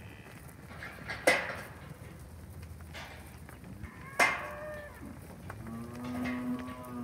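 Charolais-cross heifers mooing, with one long, steady, low moo near the end. Two sharp, loud sounds come about a second in and near the middle; the second runs into a short call.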